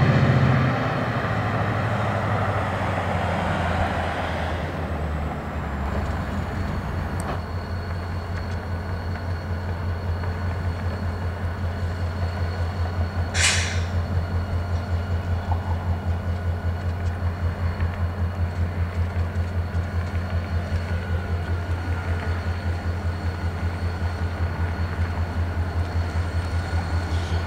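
Union Pacific yard switcher locomotives' diesel engines running as they pull a train slowly past: a low steady drone with a regular pulsing throb. There is one brief sharp noise about halfway through.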